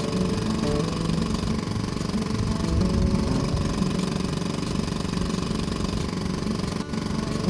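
Small outboard boat motor running steadily at a constant speed, with a momentary dip near the end.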